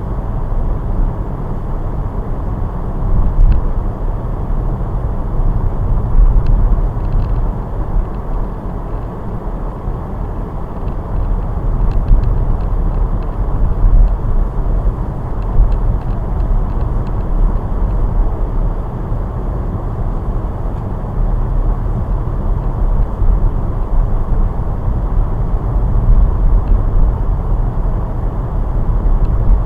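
Car driving on a road: a steady low rumble of road and engine noise, with a few faint ticks now and then.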